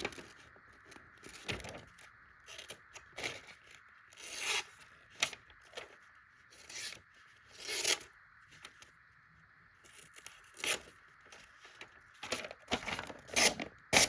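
Sheet of paper being sliced by the small 14C28N steel hawkbill blade of a Civivi Pyrus knife: a run of short, irregular cutting strokes. A blade this sharp is shearing the paper cleanly.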